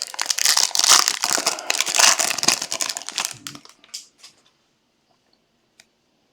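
Plastic wrapping on a trading card box crinkled and torn off by hand. It stops about four seconds in, and a single faint tick follows.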